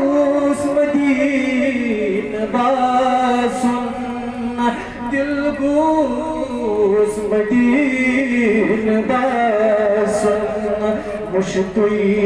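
A man singing a Kashmiri naat, a devotional poem, solo into a microphone, in long held, wavering notes that rise and fall in a slow melody.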